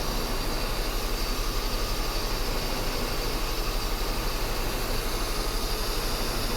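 Mercedes 560SEL's 5.6-litre V8 idling with a steady, slightly pulsing run. It is a rough idle that new spark plugs have not cured.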